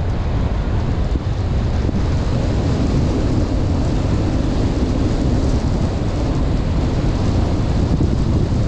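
Steady road noise of a car driving: a constant low rumble of tyres and wind with no distinct events.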